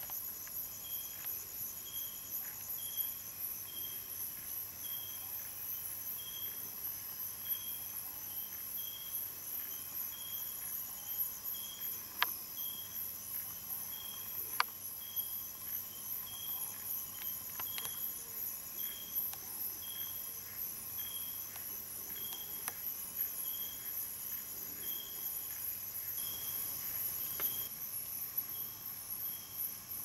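Night-time insect chorus: steady high-pitched trilling, with a short chirp repeating about every three-quarters of a second. A few sharp clicks stand out above it.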